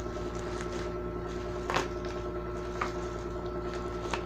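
Toy packaging being handled: three short sharp clicks, the loudest about two seconds in, over a steady electrical hum in the recording.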